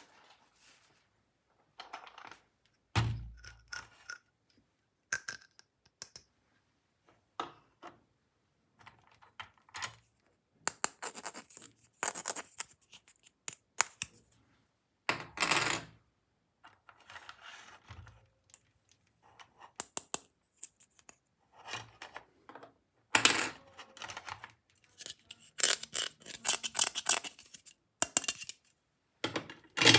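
Small hard plastic toy pieces clicking, clinking and scraping as they are handled, in irregular bursts with a heavier knock about three seconds in and denser clatter in the last third.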